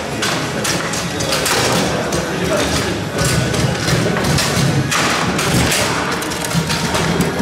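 Foosball table in play: rapid, irregular knocks and clacks as the ball is struck and trapped by the players' figures and the rods and handles jolt in their bearings, over background voices in a large hall.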